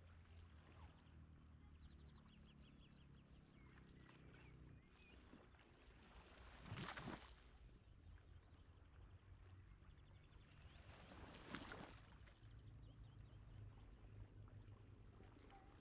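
Calm sea, faint: small waves wash in twice, about seven and about eleven and a half seconds in, over a low steady rumble.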